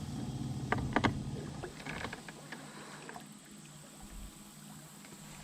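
Handling sounds on a fishing boat: a few sharp knocks about a second in, over a low hum that fades out around two seconds in.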